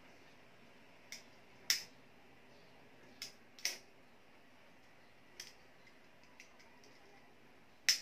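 Thin Japanese paper (papel de hapon) crackling as it is pressed and folded over a kite's bamboo frame: a handful of short, sharp crackles at uneven intervals, the loudest just before the end.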